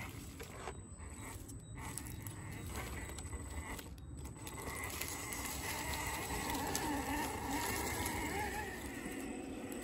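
Electric motor and gear train of a scale RC crawler truck whining as it drives over rough ground. The first part is mostly scraping and crunching; about five seconds in, a wavering motor whine comes in and grows a little louder.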